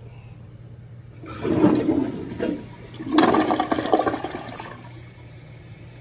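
Kohler toilet, freshly rebuilt with a new flush valve and fill valve, flushing: about a second in, water rushes into the bowl in two surges and tapers off by about five seconds. The flush works properly.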